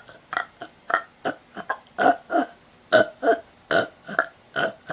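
A person doing hiccup burps: a quick run of about a dozen short burps, two or three a second, made by sucking in air and letting it straight back out.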